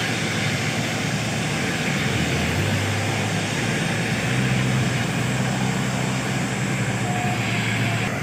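Steady jet engine noise of airliners at an airport, a broad rushing hiss with a low hum that comes in about two and a half seconds in.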